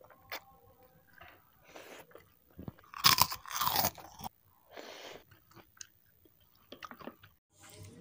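Close-up eating sounds: chewing and slurping instant fried noodles with crisp prawn crackers. A loud crunch lasts about a second around three seconds in, among quieter chewing.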